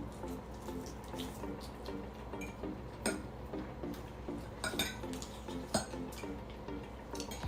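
Cutlery clinking against a plate while eating, with sharp clinks about three, five and six seconds in, over quiet background music with a short repeating note pattern.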